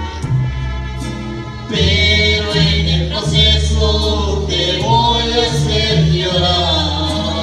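A man and a woman singing a gospel worship song as a duet into microphones over a recorded backing track with a steady bass line, heard through the church's speakers. The singing grows louder about two seconds in.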